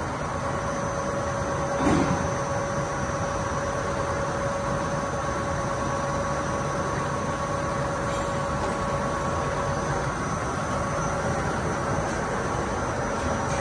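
Paper rope twisting machine running, a steady mechanical hum with a constant whine, and a single knock about two seconds in.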